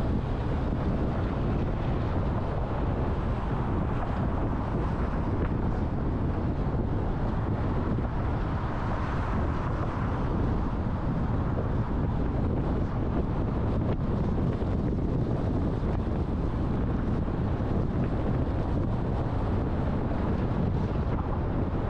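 Steady road noise of a car driving: a low rumble with wind noise on the microphone, even throughout and with no distinct events.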